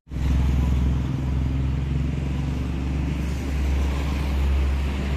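Diesel engine of a Mitsubishi Fuso truck idling steadily, a low even drone heard close to the front wheel.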